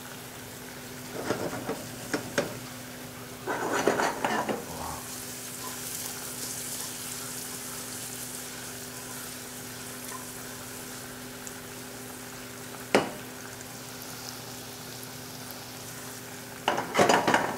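Diced apples sizzling steadily in a frying pan of melted butter and sugar as they caramelize, with a steady low hum underneath. A utensil scrapes and stirs in the pans twice in the first five seconds, there is one sharp clack a little before the end, and a brief clatter of cookware right at the end.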